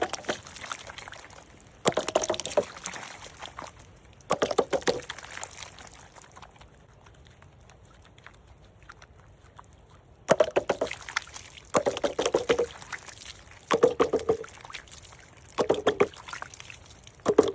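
Liquid pouring and splashing in short bursts, about eight in all, with a long pause in the middle.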